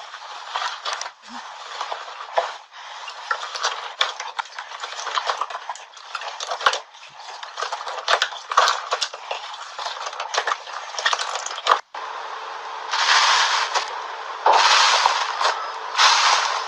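Slime being squished and pressed by hand, a run of wet crackles and sharp little clicks and pops. From about three-quarters of the way in come louder, longer bursts of crackling.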